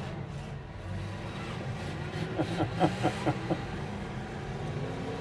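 Demolition derby cars' engines running across the arena, a steady mix of motors, with a quick run of about six louder pulses in the middle.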